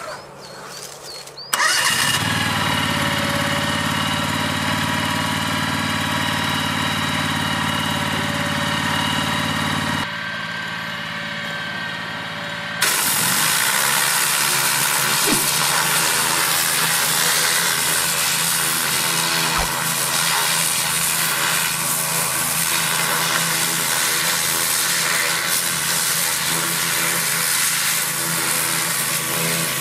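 Portable hot-water pressure washer starting suddenly about a second and a half in and running steadily. About halfway through, a loud hissing high-pressure jet of hot water and steam joins it as the lance sprays a log.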